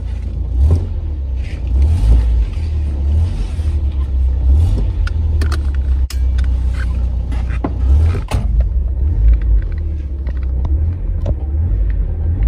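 Toyota Carina driving, heard from inside the cabin: a steady, loud, low engine and road rumble, with a few sharp knocks or rattles about halfway through.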